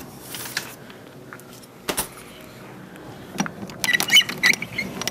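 A window and its screen being handled and opened by hand: a short scrape, a sharp click about two seconds in, then a run of clicks and squeaks near the end.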